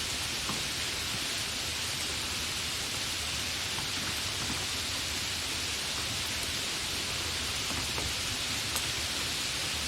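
Steady, fairly heavy rain falling, an even hiss with a few faint individual drop ticks, without thunder.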